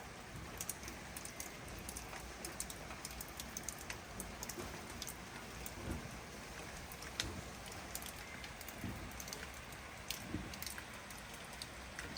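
Steady rainfall with many irregular sharp drop ticks scattered through it.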